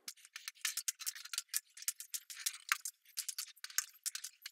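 Squeegee spreading wet black epoxy primer over ground concrete: a rapid, irregular run of short crisp crackles and scrapes.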